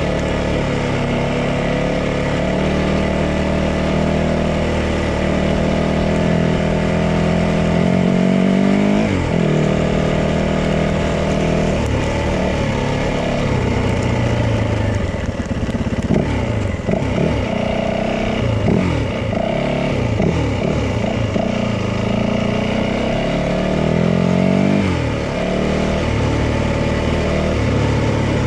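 Yamaha 450 dirt bike's single-cylinder four-stroke engine running while being ridden. It holds fairly steady at first, then from about twelve seconds in it rises and falls repeatedly with throttle and gear changes.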